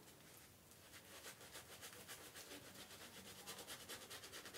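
Faint, quick, rhythmic swishing of a mixed-bristle shaving brush working lather into a bearded face.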